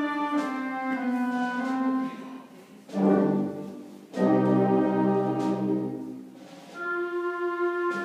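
Concert band playing a processional march: a descending melody, then two loud sustained full-band chords with deep bass notes around the middle, after which the sound drops away and a lighter melody returns near the end.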